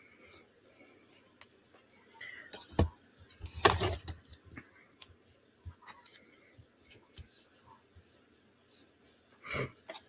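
Paper and craft tools handled on a tabletop: scattered light clicks and knocks, with one loud crunching clunk about three and a half seconds in.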